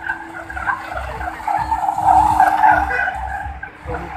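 Car tyres squealing as the car is driven in tight circles (doughnuts), with the engine running underneath; the squeal is loudest about halfway through.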